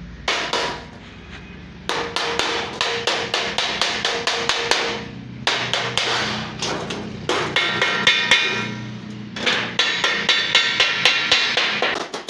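A wooden mallet striking thin sheet metal laid over a steel angle, bending the edge of a metal disc. The blows come about four a second in runs with short pauses between them, and the sheet rings after each strike.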